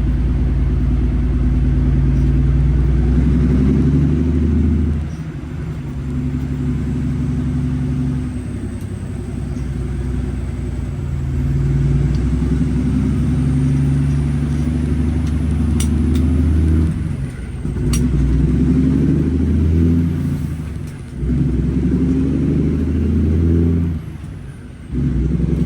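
600 hp Cummins diesel engine of an International 9900 truck running under way, a deep steady drone. Several times the engine sound dips and comes back at a different pitch, about five, seventeen and twenty-one seconds in, with a short break near the end.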